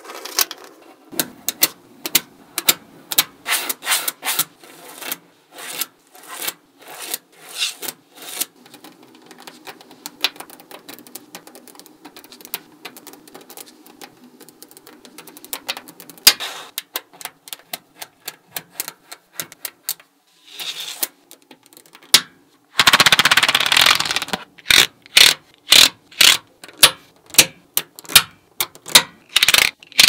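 Small magnetic balls clicking as they snap onto one another while rows are laid into a flat sheet: a quick, irregular run of sharp little clicks. About 23 seconds in there is a rattling rush of balls lasting about a second, followed by louder clicks about two a second.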